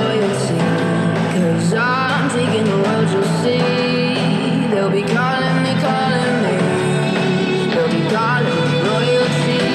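A song with a sung vocal and guitar played through a Tribit XSound Go 16 W portable Bluetooth speaker, with little deep bass.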